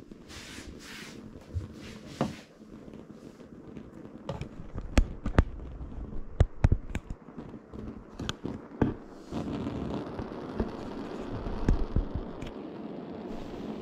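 Self-pressurising brass alcohol stove burning bioethanol during priming: the priming flame on the copper tube gives scattered sharp pops and crackles. About nine seconds in, a steady rushing burn sets in as the heated fuel starts jetting from the nozzle and the stove goes over to its main burn.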